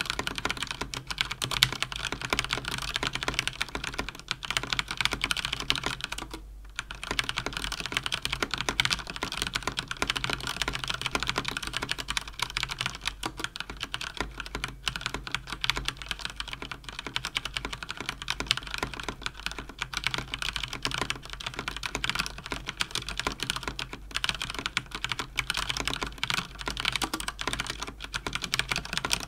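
Fast typing on a Cougar Attack X3 RGB mechanical keyboard with Cherry MX Speed linear switches: a dense, rapid stream of keystrokes with a brief pause about six seconds in.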